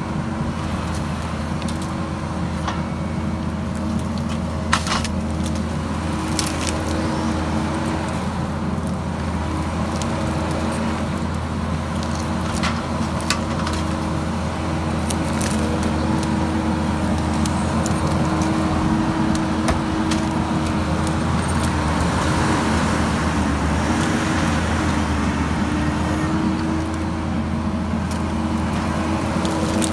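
Kubota compact track loader's diesel engine running steadily as it works its grapple on logs, growing a little louder past the middle. A few sharp knocks of steel and wood stand out in the first half.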